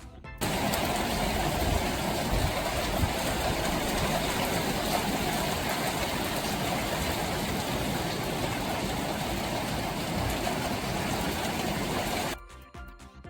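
Typhoon wind and rain: a loud, steady rushing noise with low rumbling buffeting underneath. It starts abruptly about half a second in and cuts off suddenly near the end.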